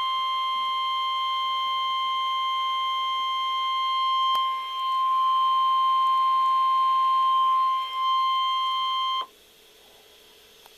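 NOAA Weather Radio warning alarm tone, a single steady 1050 Hz tone, sounding loudly from a weather radio for about nine seconds and then cutting off suddenly. It dips briefly in level twice. The tone signals that a warning message follows.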